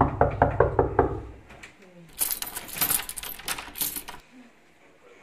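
A quick run of even knocks, about five a second, stopping about a second in. Then, after a short pause, bright metallic jangling for about two seconds, like keys or coins being shaken.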